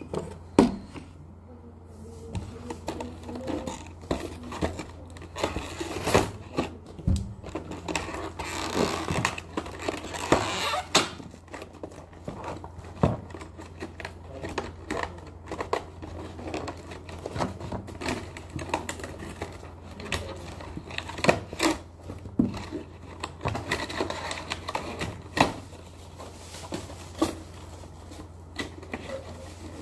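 Plastic toy parts and packaging being handled and unpacked: irregular clicks and knocks, with spells of crinkling plastic about 8 to 11 seconds in and again near 24 seconds, over a steady low hum.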